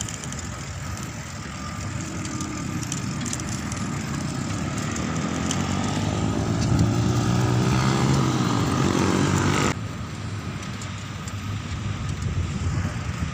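Traffic and wind noise picked up from a moving bicycle. A motor vehicle's engine grows louder and rises in pitch over several seconds, then the sound drops off abruptly about ten seconds in.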